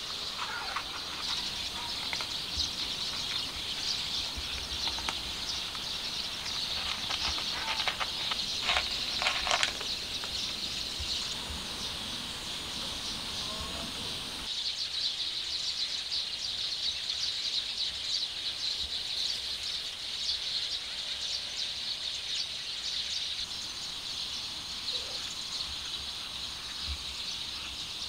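Outdoor ambience dominated by a steady high-pitched buzzing drone, with a short cluster of sharp clicks about eight to ten seconds in and a few faint chirps.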